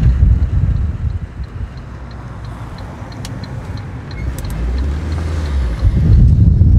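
Cabin noise of a Saab 9-5 on a rough road: a low rumble from the tyres and engine that eases as the car slows through a turn, with a light ticking about three times a second throughout, then grows loud again about six seconds in as the car pulls away.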